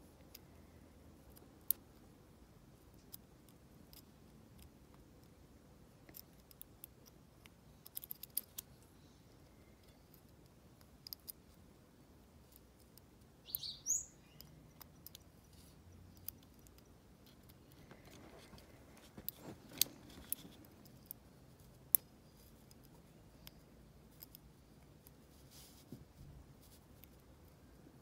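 Faint, scattered small metallic clicks and scrapes of a lock pick working the pins of a brass dimple-lock cylinder, with a brief rising chirp about fourteen seconds in.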